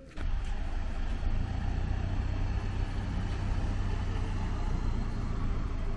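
A Mini's engine idling steadily with a low, even hum.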